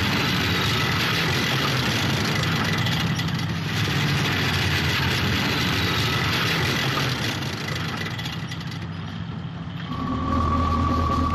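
Diesel engines of 2S1 self-propelled howitzers running as the tracked vehicles drive. The sound is steady, then dips a little. Near the end it gives way to a deeper engine hum with a steady high whine over it.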